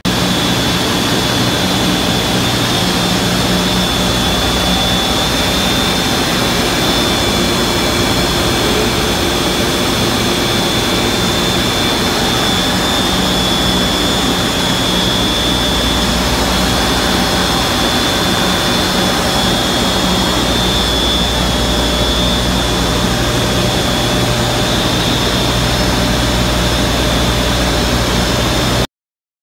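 Electric motor and centrifugal pump running steadily, a loud machinery drone with a low hum and a high steady whine. It cuts off suddenly near the end.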